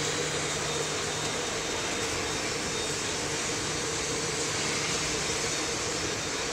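Commercial hot-air popcorn production line machinery running: a steady, even rush of noise with a constant low hum underneath.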